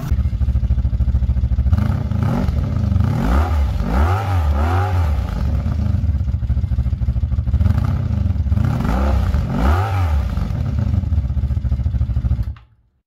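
Honda motorcycle engine idling and revved in two sets of quick blips, each rev rising and falling in pitch, then cutting off abruptly near the end.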